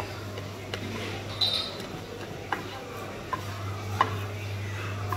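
A spatula stirring and scraping scrambled eggs in a non-stick frying pan, knocking against the pan with a sharp click about once a second, over the eggs frying in oil.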